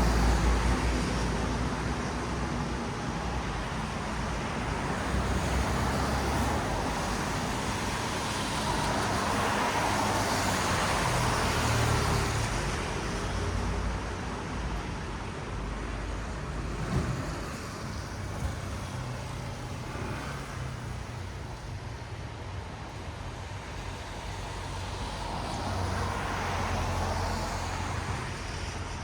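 Traffic on a wet city road: tyres hissing on the wet pavement over a low engine rumble, swelling as vehicles pass near the start, again around ten to twelve seconds in, and again near the end.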